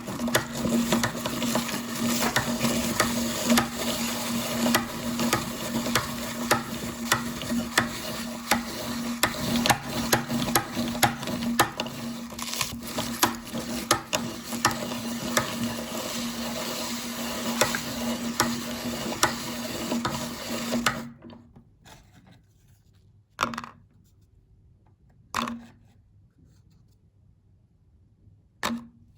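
Electric meat grinder running with a steady motor hum while crunchy cookies crackle and snap as they are crushed through it. The motor stops about 21 seconds in, leaving near quiet broken by three short knocks.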